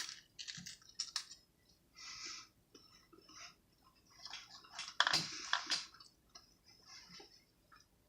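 A person chewing a cracker spread with peanut butter and jelly: irregular crunches, with a louder cluster about five seconds in.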